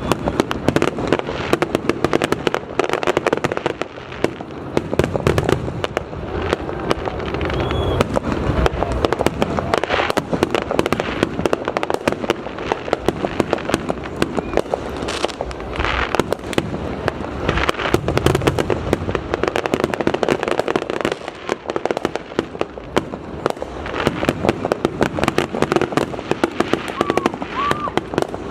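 Aerial fireworks display going off in a rapid, continuous barrage of bangs and crackling, many reports a second, with no let-up.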